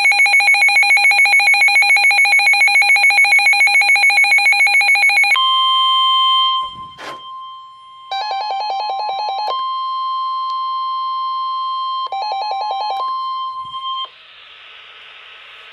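Weather radio emergency alert tones: a fast pulsing electronic alarm beep for about five seconds, then the steady single-pitch warning alarm tone of NOAA Weather Radio for about nine seconds, with the pulsing beep cutting in twice briefly. The alarm tone signals that a warning broadcast follows.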